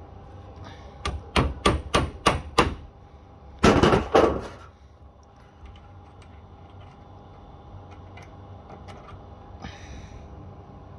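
Sharp knocks, six in quick succession and then a rapid rattling cluster, from a reverse-threaded broken-pipe extractor being worked into a broken piece of pipe stuck inside a brass water fitting. Later only a few faint clicks are heard as the extractor is turned.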